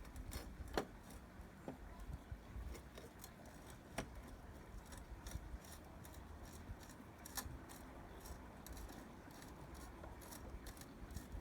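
Small metallic clicks and taps as a screw is fitted into a 50cc mini moto engine casing by hand, with a few sharper knocks about a second in, at four seconds and again past seven seconds.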